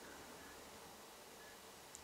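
Near silence: faint steady background hiss, with a faint short high tone repeating about once a second and one soft click near the end.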